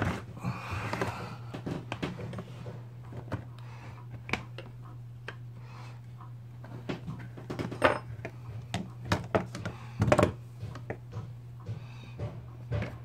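Screwdriver and small parts clicking and knocking against a Stihl MS180C chainsaw's body as a bushing is pushed into its tight groove: a run of small irregular clicks with a couple of louder knocks past the middle, over a steady low hum.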